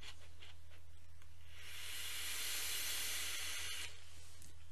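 Hiss of a draw on a vape: air pulled through the atomizer of a fired mechanical mod, with the coil sizzling, starting under two seconds in and lasting about two seconds.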